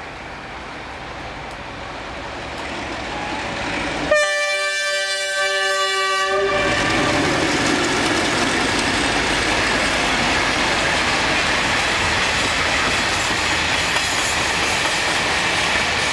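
A freight train hauled by a DF4B diesel locomotive approaches, growing louder, and about four seconds in the locomotive sounds one long horn blast lasting about two and a half seconds. After it the freight wagons roll past with a steady noise.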